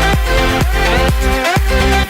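Electronic dance music with a steady four-on-the-floor kick beat and gliding synth notes.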